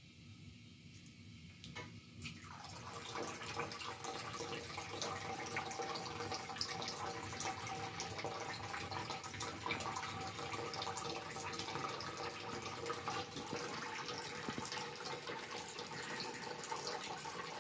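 Bathroom sink faucet running, a steady stream of water splashing into the basin; it grows louder about two seconds in and then stays steady.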